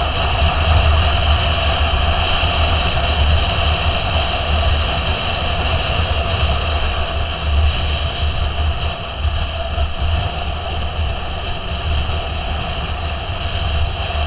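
Motorcycle riding at a steady cruising speed, with its engine running under a heavy, fluctuating rush of wind over the microphone.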